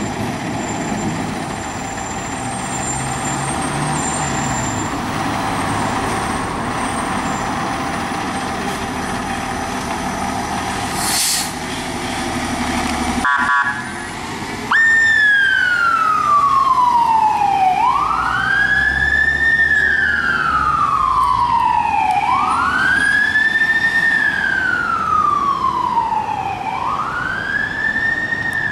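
Steady street traffic and engine rumble, then, after a sudden cut about halfway through, an emergency vehicle's siren in a slow wail: the pitch rises quickly and falls slowly, repeating about every four and a half seconds.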